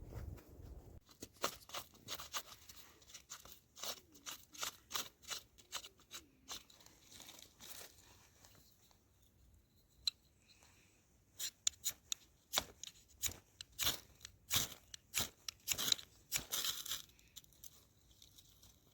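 Irregular crisp crackling and snapping, in two clusters with a quieter gap in the middle.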